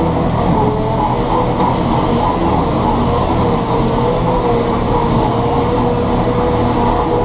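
John Deere 7710 tractor's six-cylinder diesel running steadily, with a steady whine over the engine note.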